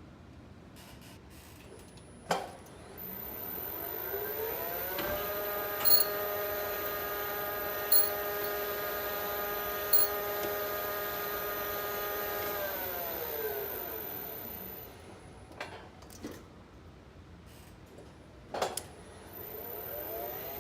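Lift machinery through one run: a sharp click, then the drive motor winds up with a rising whine, runs at a steady pitch for about eight seconds with short pips every two seconds, and winds down again, followed by a few clicks. The title names a brake noise heard mostly at the start of the up move; a second run begins to wind up near the end.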